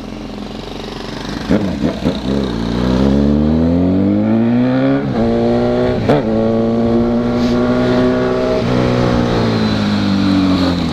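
Honda CB1000R's inline-four engine accelerating: the revs climb for a few seconds, break briefly about halfway through as a gear is shifted, hold steady, then drop near the end as the throttle is closed.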